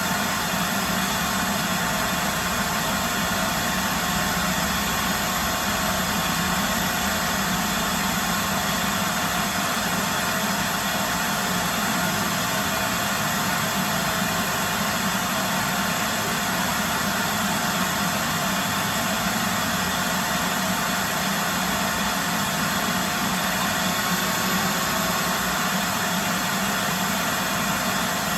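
4-gallon shop vacuum running steadily, its motor and suction making an even, unbroken noise.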